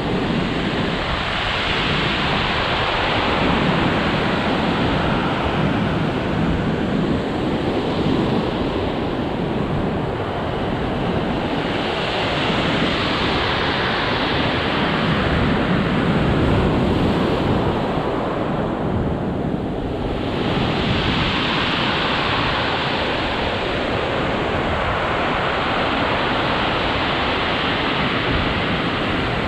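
Heavy ocean surf breaking and washing up a pebble beach, a continuous rush that swells and eases as each wave comes in. Wind buffets the microphone.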